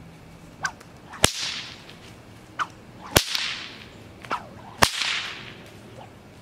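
Whip fitted with a thin Dyneema-fibre popper cracking three times, about two seconds apart. Each sharp crack comes just after a short swish of the whip through the air and is followed by a brief hiss.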